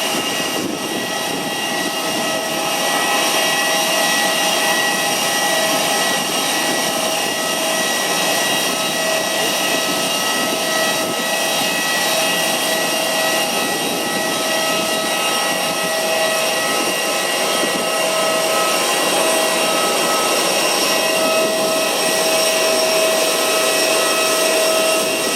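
Airbus A320-214 jet engines running steadily: a broad rush with a whine of several high steady tones.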